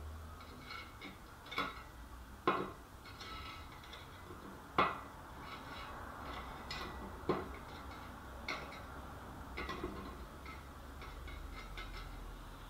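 Scattered light metallic clinks and taps of steel rods against a steel workpiece, three of them sharper, a couple of seconds apart, over a faint low hum.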